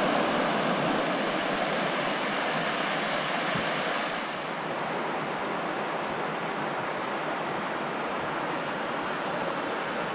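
Chattooga River water rushing over rocks, a steady noise that drops a little and becomes softer about four and a half seconds in.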